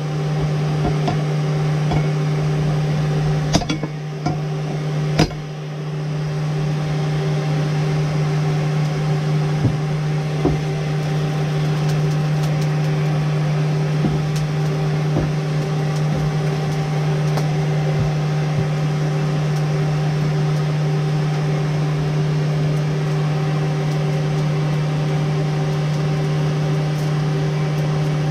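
Electric forge blower running with a steady, even hum. A few light metallic clicks or knocks come in the first several seconds.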